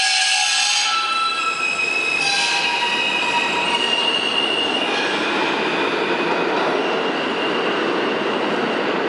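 New York City Subway R160A train pulling out of the station, its steel wheels squealing in several steady high tones that come and go over the constant rumble of wheels on the rails.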